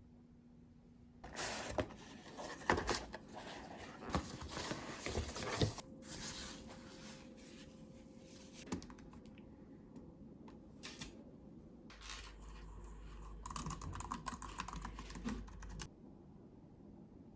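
Packaging being handled and torn open: crinkling, tearing and small taps in two stretches, the first starting about a second in, the second near the end.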